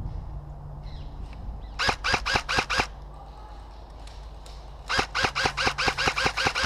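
Airsoft electric AK rifle (LCT AKMS) firing two quick strings of BBs. About six shots come near the start, then a longer string of about ten shots, each a sharp crack from the gearbox cycling.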